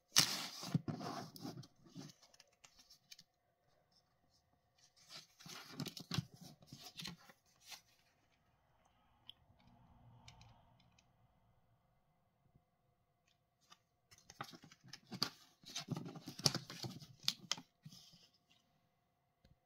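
Paper rustling as a small user manual is handled, opened and its pages turned, in three bursts of a couple of seconds each.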